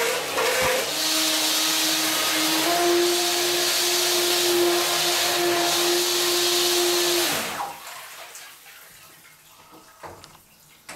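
RC speedboat's brushless electric motor running at a steady whine, its propeller churning and spraying bathtub water while it is run to flush the boat's water-cooling system. The motor cuts off about seven and a half seconds in, leaving faint water lapping.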